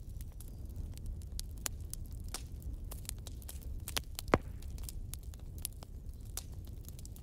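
Pen scratching and tapping on a workbook's paper pages: small scattered clicks and scratches over a steady low hum, with one sharper tap about four seconds in.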